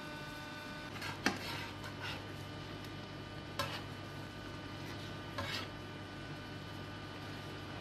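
Metal fork scraping and knocking against a non-stick frying pan while stirring a cream sauce: three short scrapes spread across a few seconds, the first the loudest, over a steady low hum.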